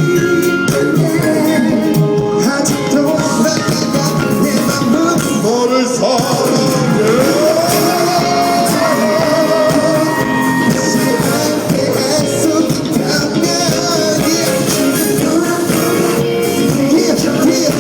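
Pop song playing loudly, with a singing voice over a full band backing.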